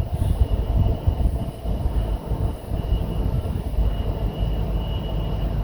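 Train moving through the station: a low, uneven rumble of wheels and running gear with a faint steady high tone over it.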